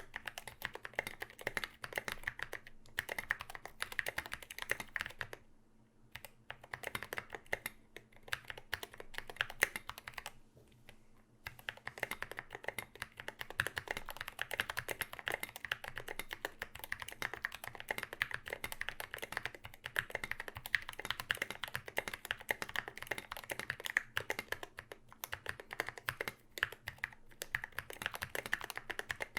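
Typing on a custom aluminium KBD75v2 mechanical keyboard with Zealios v2 65g tactile switches and SA doubleshot ABS keycaps: rapid, steady keystrokes with two short pauses, the first at about six seconds and the second at about ten seconds.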